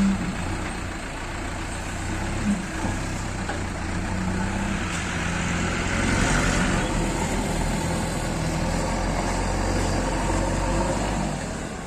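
Heavy diesel engine of a JCB backhoe loader running steadily, growing briefly louder and harsher about halfway through.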